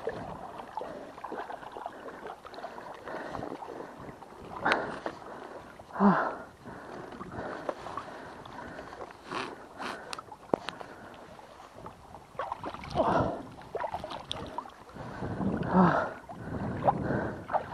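Water sloshing and lapping against concrete tetrapod blocks at the waterline, with a few sudden louder sounds about five, six, thirteen and sixteen seconds in.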